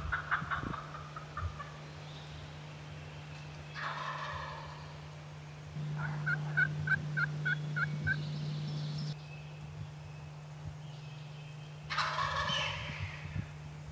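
Wild eastern turkey gobbler gobbling three times: once at the start, again about four seconds in, and loudest near the end. In the middle there is a quick run of about eight hen yelps.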